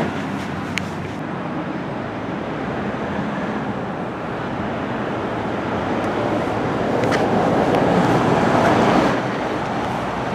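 Road traffic noise, with a vehicle passing close that grows louder about seven seconds in and drops away sharply about nine seconds in.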